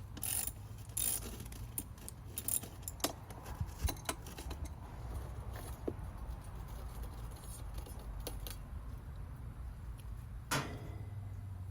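Light metallic clicks and rattles, mostly in the first few seconds with one more near the end, as the long steel rod holding a DE pool filter's grid assembly is undone, over a steady low rumble.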